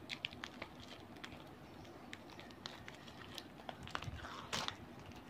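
Faint scattered clicks and crackles of plastic packaging being worked at by hand to get it open, with a brief rustle about four and a half seconds in.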